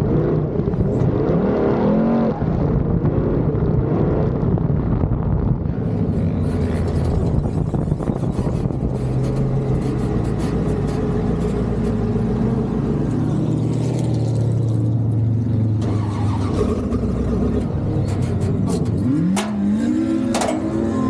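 Sandrail engine running hard under load over the sand, its pitch rising and falling with the throttle and revving up again near the end, over a steady rushing noise.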